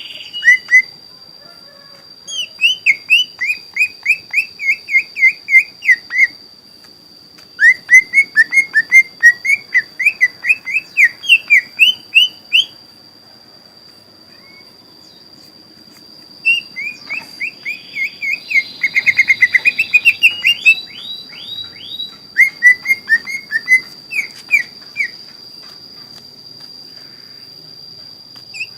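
A young green leafbird (cucak ijo) singing in full voice: phrases of rapid, repeated down-slurred whistled notes, about three a second, broken by pauses of a second or more. A steady, faint high-pitched tone runs underneath.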